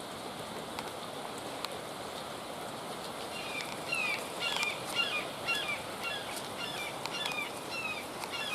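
A small songbird singing a quick run of short, sweeping chirps that starts about three and a half seconds in, over a steady outdoor hiss.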